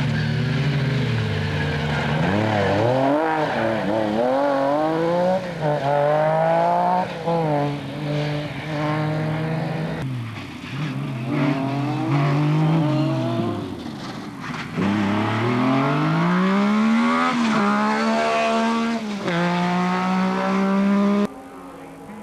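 Metro 6R4 rally car's V6 engine being driven hard, its note repeatedly climbing as it revs and then falling away as it lifts off. The engine sound falls away abruptly about a second before the end.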